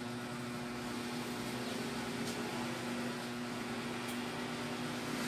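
Steady machine hum with a low, unchanging tone over a faint hiss of background noise.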